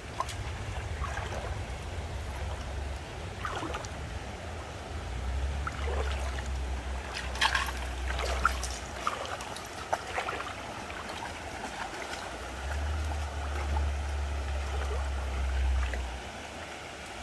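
Creek water running and trickling over rocks, with scattered splashes and clicks from wading through the shallows, the sharpest about halfway through. A low rumble comes and goes underneath.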